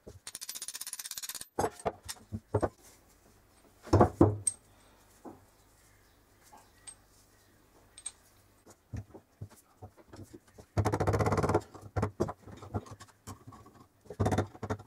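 Metal parts of a 1948–50 German two-speed geared crank hand drill clicking and clattering as it is taken apart by hand. A rapid ticking rattle comes at the start and again about eleven seconds in, with two louder knocks about four seconds in.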